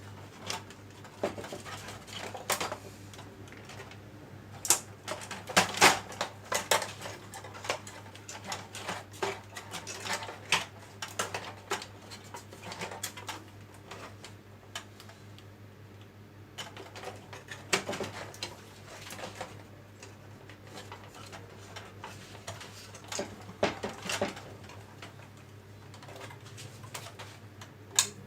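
Irregular clicks, taps and clatter of tools and small plastic and metal parts being handled while a projector is taken apart, with a few louder knocks clustered around a third of the way in, and again later. A steady low hum runs underneath.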